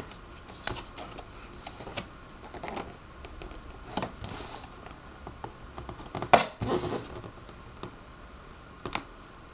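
Scissor blade scraping along the seam of a cardboard box to slit its seal sticker, with scattered taps and scratches from handling the box. A few short scrapes stand out, the loudest a little past six seconds in.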